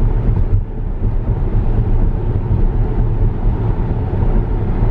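Steady low road and tyre rumble inside the cabin of a Tesla Model S moving at freeway speed, with no engine note.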